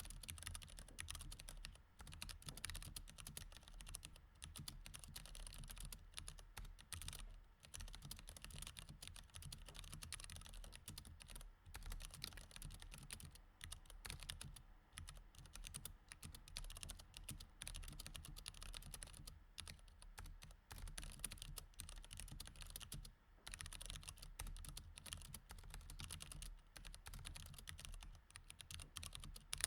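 Continuous typing on a mechanical keyboard with Cherry MX Red switches: dense, rapid key clicks with a few brief pauses.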